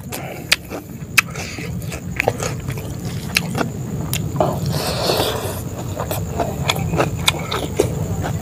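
Close-up chewing of rice and chicken, with many sharp wet mouth clicks and lip smacks. About five seconds in, a short rustle of rice being scooped up by hand. A steady low hum runs underneath.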